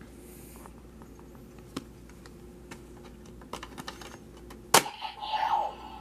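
Light plastic clicks from handling a DX Dragvisor Zwei toy, then a sharp plastic clack near the end as its card-loading section is snapped open, followed at once by the toy's electronic sound effect, a run of falling tones.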